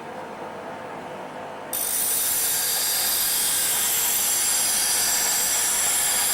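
Stanley STGB3715 bench grinder running steadily with a low hum, then a bit under two seconds in a loud, high, even grinding starts abruptly and holds, as a workpiece is pressed against the grinding wheel.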